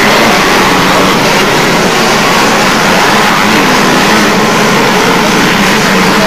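A pack of motocross motorcycles racing around the track, several engines running loud together with their pitch rising and falling as the riders work the throttle.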